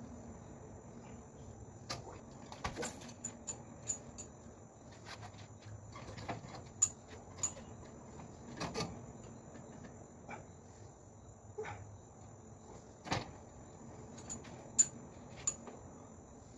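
Crickets trill steadily in the background. Over them come irregular knocks and clicks, about one a second, from the hanging weight plates and loading pin shifting during weighted push-ups. The sharpest knocks come about 7 and 15 seconds in.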